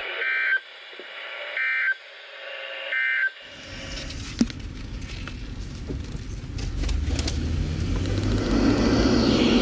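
Three short bursts of EAS/SAME end-of-message data tones from a weather radio, about a second and a half apart. After a sudden cut, a vehicle's low road and engine rumble grows steadily louder.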